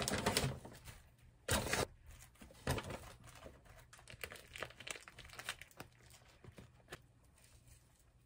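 Plastic food bags crinkling and rustling: a few louder bursts in the first three seconds, then lighter crackling as a plastic pouch of marinated beef is handled and squeezed.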